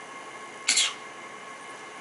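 A single short, breathy fake cough about two-thirds of a second in: a playful, put-on cough, not a sign of illness.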